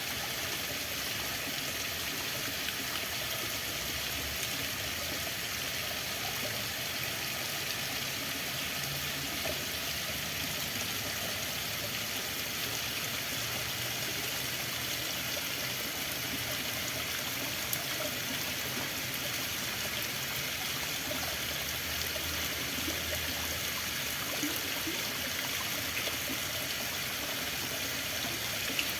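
Running water, a steady unbroken rush with no change throughout.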